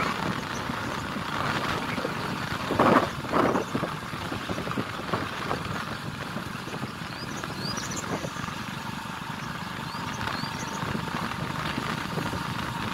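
Motorcycle engine running steadily while riding along a farm track, with road and wind noise. Two short louder sounds come about three seconds in.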